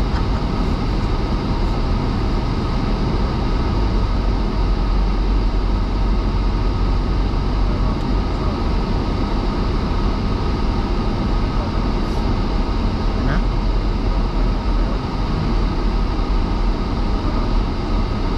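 Steady road and tyre noise with engine drone inside a moving car's cabin, heaviest at the low end and even throughout.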